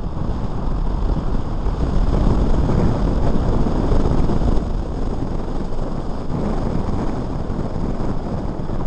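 Wind buffeting the microphone during a run on a 48-volt electric motorcycle, a loud steady rush heaviest in the low end.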